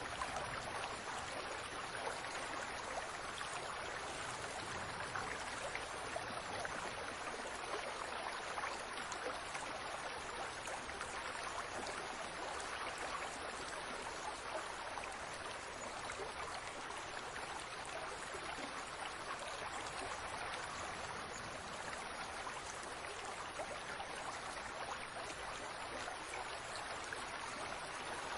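Fountain water falling and splashing steadily, an even, unbroken rush of running water.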